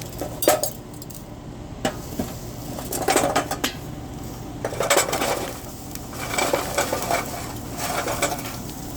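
Lit charcoal briquettes dumped from a metal chimney starter into the charcoal ring of a Weber Smokey Mountain smoker: several bursts of clinking and rattling as the coals tumble out and are shaken loose.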